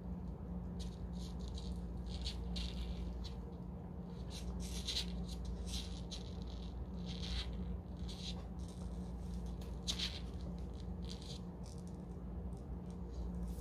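Persian mother cat licking herself and her newborn kitten just after the birth: a string of short, irregular wet clicks and rasps, over a steady low hum.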